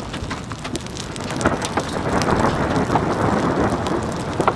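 Hail hitting a van's roof and windows, heard from inside the van: a dense scatter of sharp ticks over a steady rush of rain and wind, growing heavier about a second and a half in.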